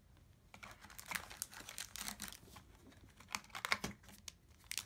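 Foil trading-card booster pack crinkling with small irregular crackles as it is handled and torn open.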